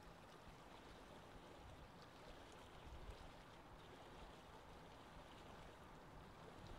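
Faint, steady wash of sea water around a boat, with a low rumble underneath.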